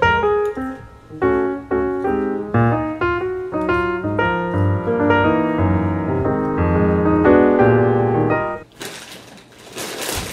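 Piano music played as a run of chords over a bass line, stopping about nine seconds in. A rustling noise follows near the end.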